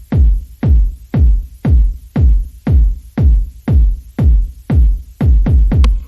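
Electronic background music with a steady, heavy kick-drum beat, about two beats a second.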